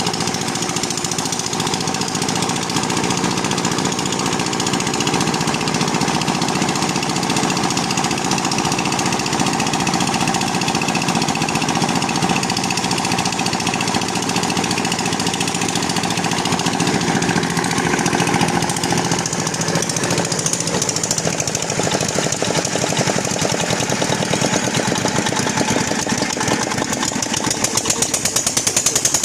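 Deep-well drilling machine running steadily on test, a loud fast mechanical clatter throughout; the beat stands out more clearly near the end.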